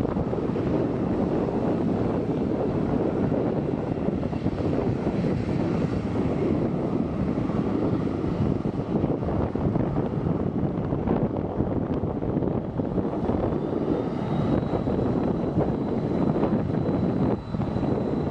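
Jet engines of a Boeing 737 running steadily as it taxis, a continuous engine rumble and rush. A faint high whine climbs slightly about fourteen seconds in and then holds.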